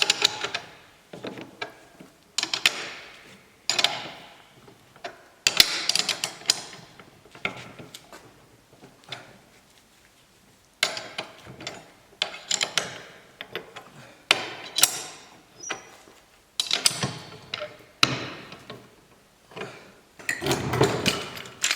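Hydraulic floor jack being worked by hand: repeated metal clanks, knocks and clicks, coming irregularly about every second, with a quieter stretch about halfway through.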